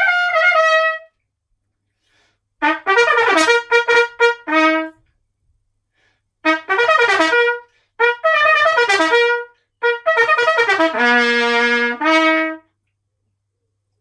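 Solo valve trumpet playing short phrases of quick notes separated by brief rests. The last phrase settles on a held low note, steps up to a final note and stops.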